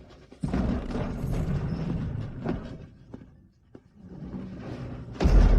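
Dramatic soundtrack music with a low rumbling swell, then a heavy low boom near the end.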